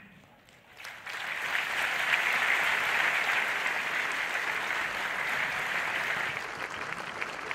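A large audience applauding, the clapping swelling in about a second in and then holding steady.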